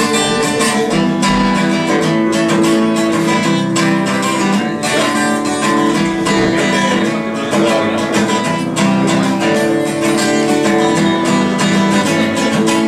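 Acoustic guitar strummed in a steady rhythm, playing a song's instrumental intro.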